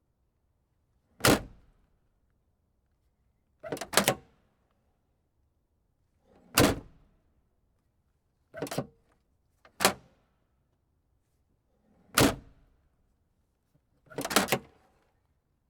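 Car trunk lid being opened and shut again and again: a series of sharp latch clunks and slams at varying force, about seven in all, roughly every two seconds, some coming as a quick double knock.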